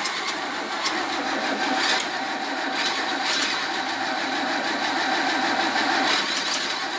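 Carburetted car engine with twin two-barrel carburettors running, with a few sharp ticks at uneven intervals over the steady run.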